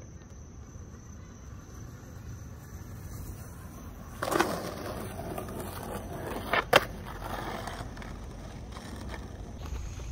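Skateboard wheels rolling over rough asphalt with a steady low rumble. About four seconds in there is a short loud rasp, and near seven seconds two sharp clacks close together as the board strikes the pavement.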